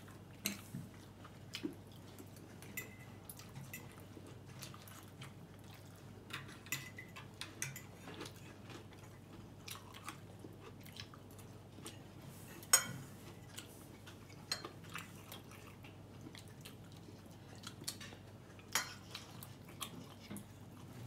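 Fork clinking and scraping on a ceramic dinner plate, with chewing. Short clinks come scattered throughout, the sharpest a little past the middle and another near the end.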